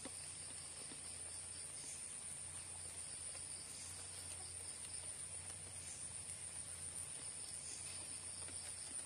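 Steady, faint, high-pitched chirring of night insects such as crickets, an unbroken chorus.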